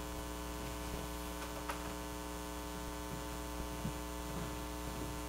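Steady electrical mains hum with a stack of overtones, with a few faint knocks about two and four seconds in.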